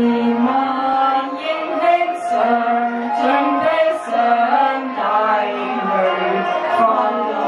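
A group of women singing a Cantonese opera melody (yueqü) together, with long held notes and gliding ornaments between them.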